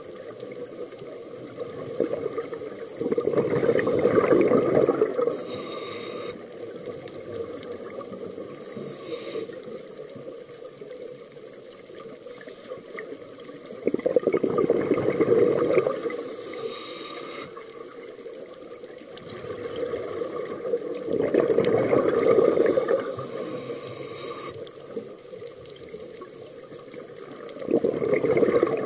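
Scuba diver breathing through a regulator underwater: four long, loud rushes of exhaled bubbles, with a shorter, higher hiss of inhalation between them.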